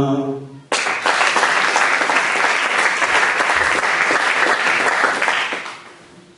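The last held note of an unaccompanied sung bertso verse trails off. An audience then bursts into applause about a second in, claps steadily, and dies away near the end.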